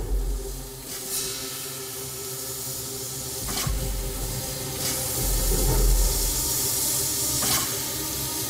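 Steam locomotive letting off steam: a steady hiss that surges several times, over a deep rumble that comes and goes.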